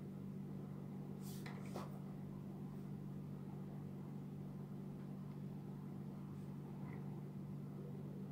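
A steady low hum, with two faint short clicks about a second and a half in as a small plastic toy robot figure is handled and turned on a wooden tabletop.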